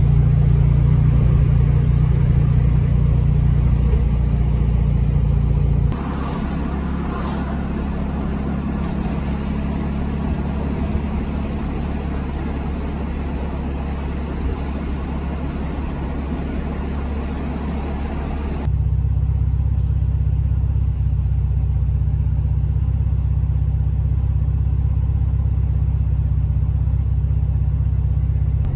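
Air-cooled VW Beetle flat-four engine running steadily on the move, heard from inside the cabin with road noise. The sound changes abruptly twice, about six seconds in and again a little past eighteen seconds: quieter and hissier in the middle stretch, then a steady deep engine note again.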